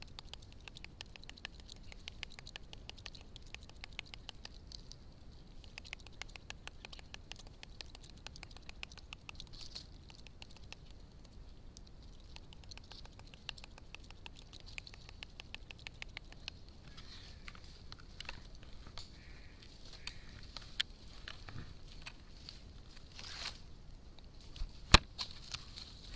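Celebes crested black macaque chattering close to a camera trap: a fast, even run of soft clicks that thins out over the last ten seconds, with a sharp knock near the end.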